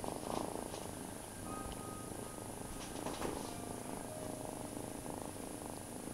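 Loud, steady purring from a cat held close against the microphone.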